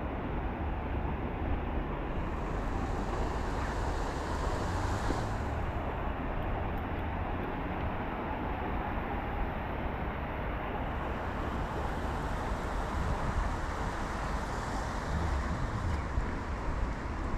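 Steady low rumble of motor vehicles, engines and road traffic running.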